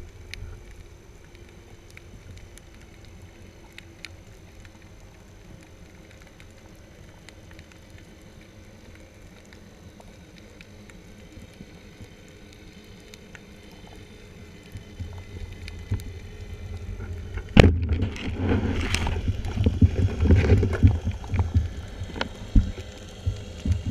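Underwater ambience, a low steady rumble with faint scattered clicks, then about three-quarters of the way through a single sharp crack as the band-powered speargun fires, followed by loud churning water and knocking as the diver swims and handles the gun.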